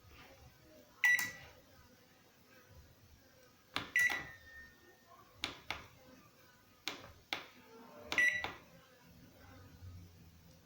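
LG microwave oven's control buttons, newly fitted push-button switches, clicking as they are pressed several times; three of the presses are answered by the oven's short high beep, showing the keys now register.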